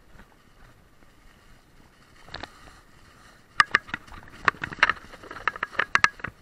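Mountain bike rattling over bumps on a trail: irregular sharp clacks and knocks, a single one about two seconds in, then a dense run of them from about three and a half seconds in.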